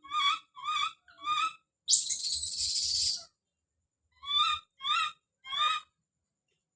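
Baby monkey calling out in a series of short, high, rising-and-falling cries, three at the start and three near the end, with one louder, harsh scream lasting about a second and a half in the middle.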